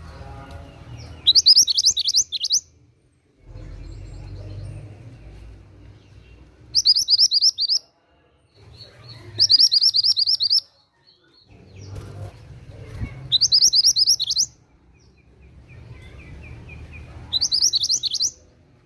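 Mantenan gunung songbird singing: five short phrases of rapid, high, repeated chirps, each about a second long, a few seconds apart.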